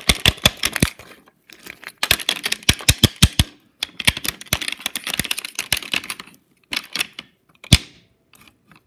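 Wooden toy engine pushed by hand along wooden toy track, its wheels clattering in rapid clicks in three spells with short pauses, then a few taps and one sharp knock near the end.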